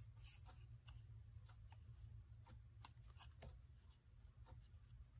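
Near silence with faint paper rustles and a few light ticks as a narrow cardstock strip is threaded through slits in a die-cut paper label.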